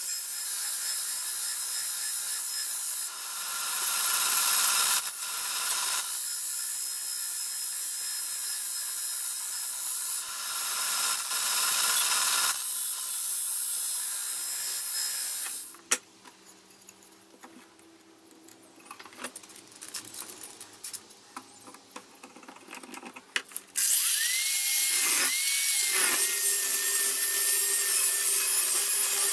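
Belt grinder grinding a thin steel plate by hand: a steady hissing grind that changes level as the piece is pressed and eased off. It stops suddenly about halfway; after a quiet stretch with small clicks and handling sounds, a small angle grinder starts with a rising whine and cuts into steel.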